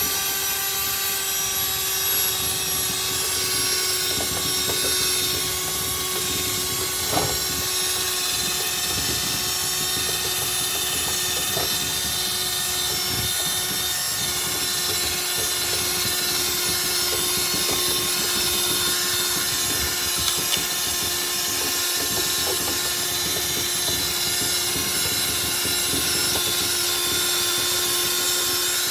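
Cordless drill spinning a wire cup brush against rusty steel diamond plate, scrubbing off loose, flaking rust. A steady motor whine runs over a scratchy grinding of wire bristles on metal, with a few small clicks.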